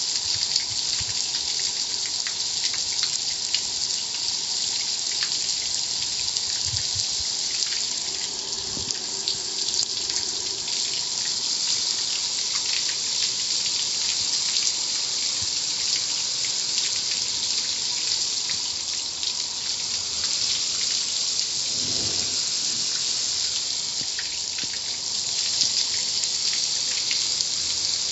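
Car wash water jets spraying in a steady, high hiss.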